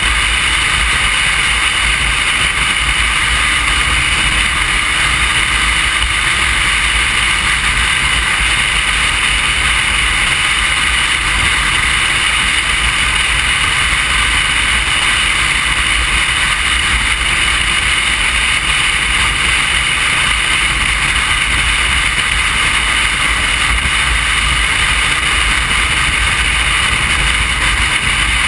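Motorcycle riding at a steady cruising speed: a constant mix of engine, road and wind noise, with wind rushing over the bike-mounted camera's microphone.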